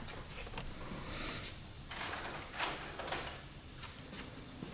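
Faint, scattered clicks and light scrapes of hand tools being handled.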